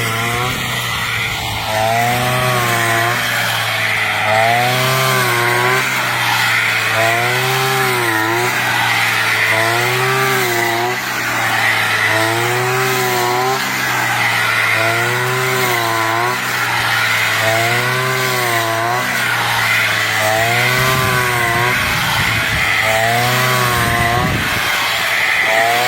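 Brush cutter engine running under load, its pitch rising and falling in a regular swing about every two seconds as it cuts through rice stalks.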